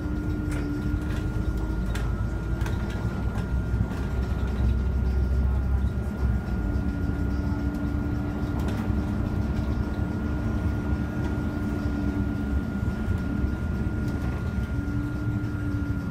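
Cabin sound of a Solaris Urbino 15 city bus on the move: a steady low engine and road rumble, heaviest in the first few seconds. A mid-pitched whine comes and goes, and a faint steady high tone runs underneath.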